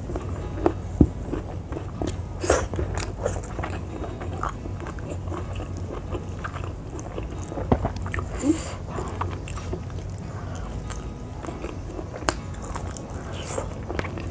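A person biting and chewing crunchy raw vegetables close to the microphone: irregular wet crunches and clicks of the mouth, over a faint steady low hum.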